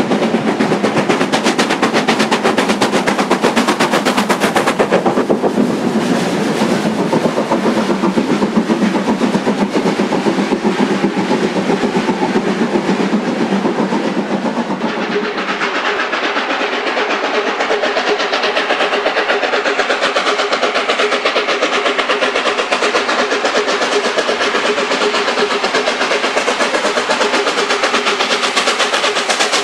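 Steam train running away, its coach wheels clattering in a fast rhythm over the rail joints. About halfway through the sound changes abruptly to the steady working of the LNER A4 Pacific locomotive 60007 'Sir Nigel Gresley' as it approaches.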